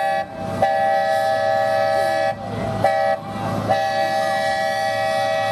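A multi-chime train horn sounding in blasts: the end of one blast, then a long one, a short one and a final long one that runs past the end. This is the two-long, one-short, one-long grade-crossing signal, played over the steady rumble of the train.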